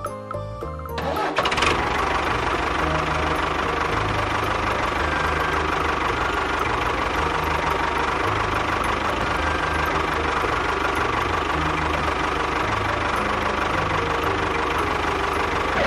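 A machine's engine or motor running steadily, a dense even rattling noise that starts abruptly about a second in, over background music with a low bass line.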